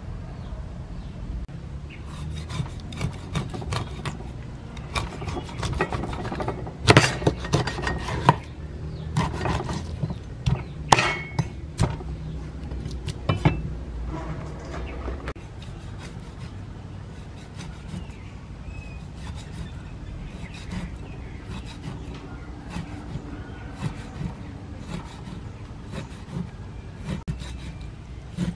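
A large kitchen knife chopping a whole fish into pieces on a wooden chopping board: sharp knocks of the blade striking the board, loudest in the first half, with rubbing and scraping between. Later come lighter, quicker taps as the knife scores the fish pieces.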